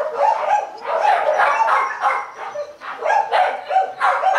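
Hmong bobtail dogs barking and snarling in quick repeated bursts: the female is fending off the male's mating approach.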